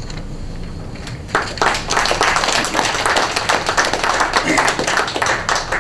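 Audience applauding, starting about a second and a half in and dying away near the end.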